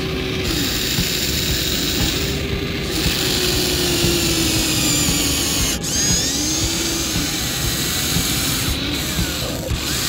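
Huina remote-control toy excavator's small electric motors and gears whirring as the boom and bucket dig into sand, the whine rising and falling away several times.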